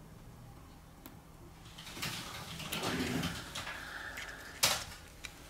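Small hand tools working on smartphone parts: a click, then a couple of seconds of scraping and handling with a brief squeak, ending in a sharp click.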